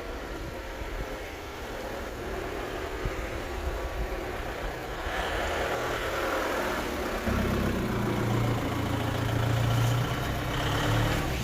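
A heavy vehicle's engine running, getting louder and deeper about seven seconds in.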